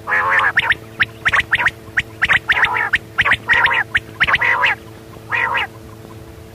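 Quail (batair) calling: a rapid series of short sharp notes mixed with longer, drawn-out notes, repeated in bursts and stopping a little before the end.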